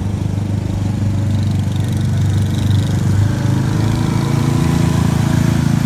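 Small engine of a six-wheeled amphibious all-terrain vehicle running steadily as it drives slowly closer, growing a little louder.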